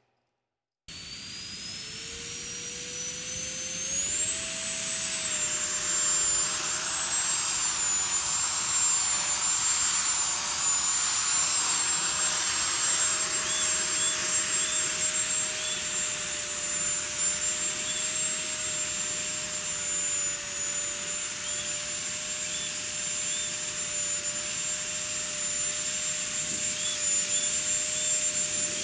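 Electric ducted fan of a model rocket starting up about a second in, its whine rising in pitch for a few seconds. It then runs at a steady high whine with a rushing hiss while the rocket hovers.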